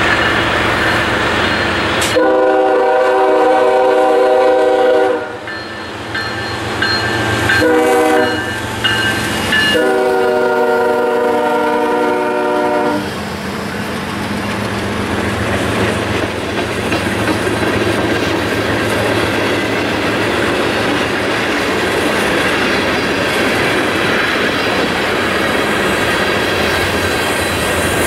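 Diesel freight locomotive's air horn sounds three blasts, long, short, long, as the train approaches. Then the train's freight cars roll past with a steady rumble and the clickety-clack of wheels over rail joints.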